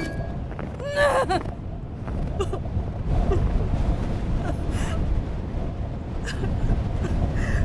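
Fight-scene sound effects in an audio drama: gasps and short effortful vocal sounds, with several sharp hits, over a steady low rumble.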